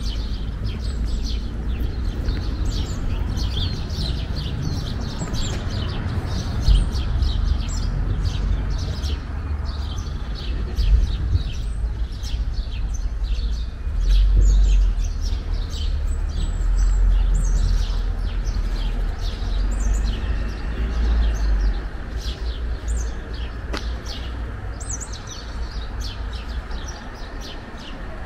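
Small birds chirping and twittering busily, over a steady low rumble.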